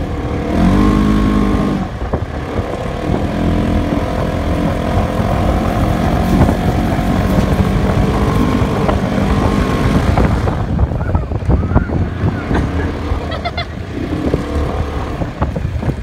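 Engine of the towing vehicle running steadily under load while it pulls a sled across the snow, with the rumble and crunch of tyres on snow, rougher and more irregular in the last few seconds.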